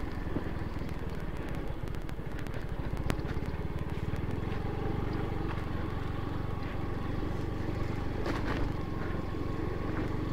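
Yamaha Mio automatic scooter's engine running steadily at low speed along a rough dirt path, with scattered knocks and rattles from the bumps.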